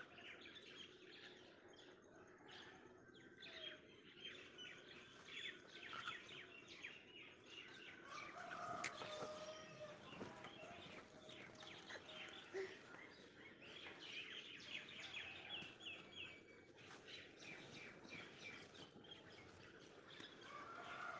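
Faint birdsong: many small birds chirping in quick, overlapping bursts, with a few lower, longer calls around the middle and again near the end.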